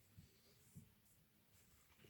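Near silence, with two faint low knocks about half a second apart.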